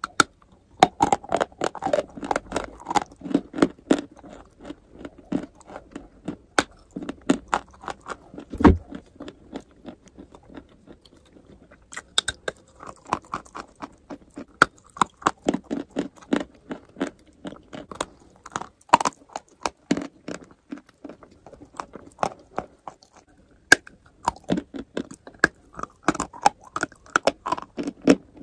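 A person biting and chewing a block of chalk: repeated sharp crunches and crackles in quick runs, with a quieter pause about ten seconds in.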